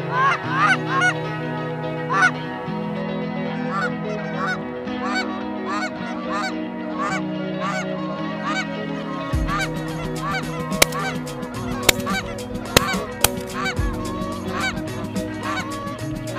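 Canada geese honking, a rapid series of short calls about two a second, over background music with low sustained notes. A few sharp clicks come in the second half.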